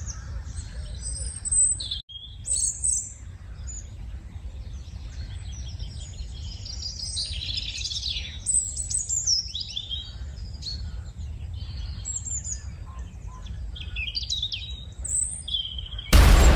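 Many birds chirping and singing over a low steady background, with a brief break about two seconds in. Near the end a sudden loud rush of noise cuts in over it.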